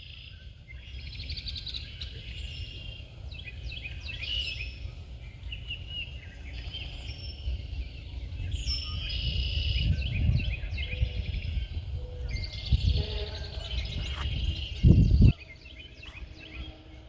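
Several songbirds chirping and trilling over a steady low rumble, with a brief loud low-pitched bump about fifteen seconds in.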